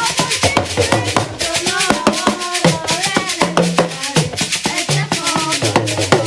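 Upbeat music driven by fast hand percussion and a shaker, with a repeating bass line and a melody over it.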